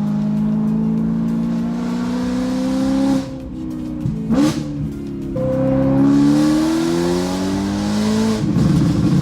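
A 2013 BMW M3's V8, tuned and nearly straight-piped, heard from inside the car as it accelerates hard, its pitch climbing through a gear. About three seconds in there is a shift or lift, and a second climb follows. Near the end the exhaust breaks into crackling and popping on the overrun.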